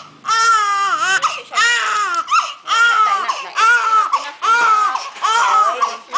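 Newborn baby crying in a rapid run of short wails, each rising and falling in pitch, about nine of them one after another.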